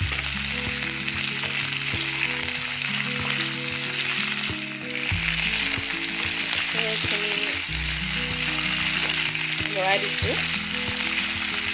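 Green capsicum (bell pepper) pieces sizzling in hot oil in a kadai, with a wooden spatula stirring and knocking against the pan now and then. Background music with held notes plays under the frying.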